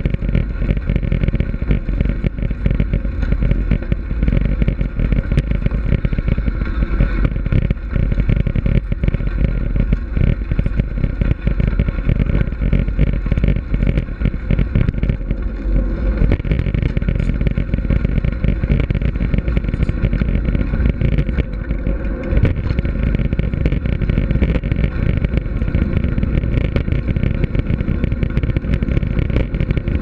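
Mountain bike rolling along a packed gravel trail: a steady rumble of tyre and wind noise with dense, constant rattling.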